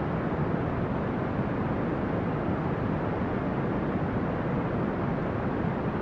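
Steady brown noise: an even, deep rushing hiss with most of its weight in the low end and little treble, unchanging throughout.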